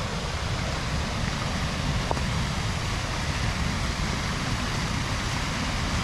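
Small creek waterfall pouring steadily: an even rushing noise.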